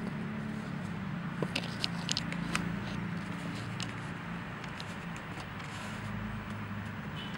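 Small sharp clicks and scratches of a hedgehog moving on a wooden floor against the skirting board, clustered between one and three seconds in, with one more a little later, over a steady low hum.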